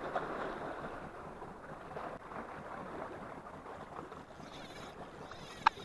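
Black Sea water washing against the shore as a steady, fairly quiet rush, with one sharp click near the end.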